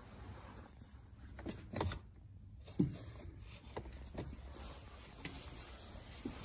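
Handling noise from a camera moving around a car interior: a few soft knocks and rubs, the loudest about three seconds in, over a low steady hum.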